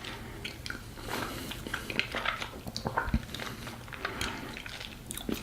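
Faint eating sounds while tasting ice cream: small scattered clicks of a spoon and soft mouth noises.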